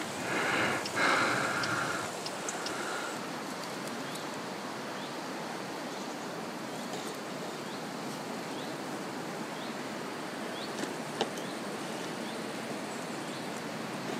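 Steady outdoor ambience: a soft, even rushing noise, with faint short rising chirps about once a second. There is a louder, briefly tonal sound in the first two seconds, and a single sharp click about eleven seconds in.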